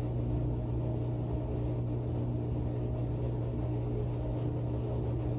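A steady, low machine hum with a strong droning tone, unchanging throughout, like an appliance or blower motor running.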